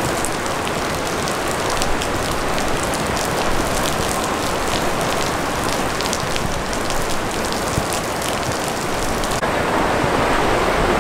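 Heavy rain on a flooded street: a steady hiss with close drops striking as sharp ticks. Near the end the sound changes abruptly to the deeper, steady rush of churning floodwater.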